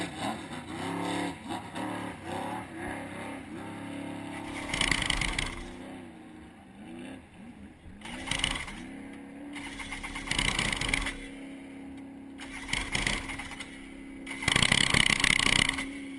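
Two-stroke jet ski engine with twin carburettors, just started and running with its hood off, revving unevenly in bursts at first, then holding a steady idle for the last several seconds, with a few more rev blips. It is running again after sinking, with the water drained from the engine and flushed from the fuel system.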